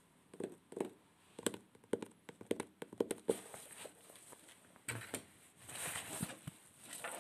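Close-miked rummaging through objects while searching for a pair of headphones: a quick run of small clicks and taps, then soft rustling near the end.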